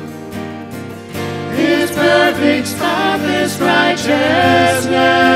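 Worship band playing a slow worship song on acoustic guitars and electric bass, with voices singing the melody. The singing comes back in about a second in, after a short lull.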